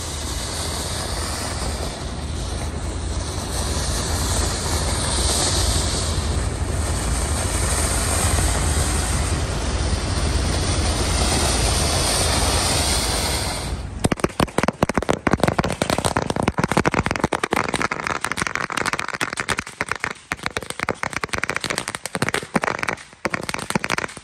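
A steady rushing hiss, then about fourteen seconds in a dense run of rapid firecracker bangs and crackles that goes on to the end.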